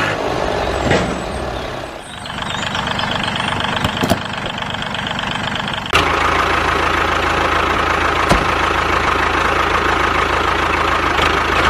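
Tractor engine running at a steady idle with an even chugging; about six seconds in the sound changes abruptly to a louder, steadier run.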